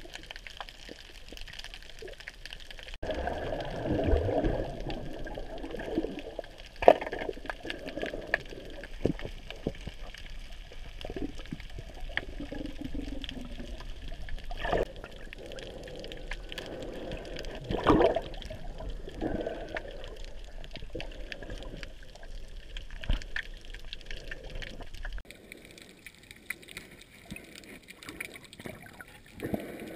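Water splashing and sloshing, with a few sharper, louder splashes. The sound drops to a quieter wash near the end.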